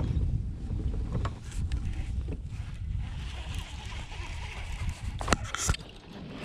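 Wind rumbling on the microphone out on open water, with a faint hiss and two or three sharp clicks a little after five seconds in.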